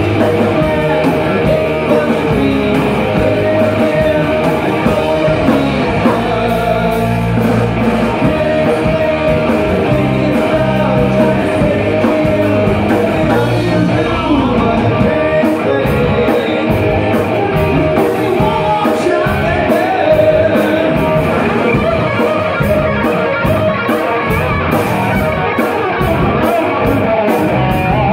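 Live rock band playing: electric guitar through a Randall amplifier, bass guitar and drum kit, with a man singing lead.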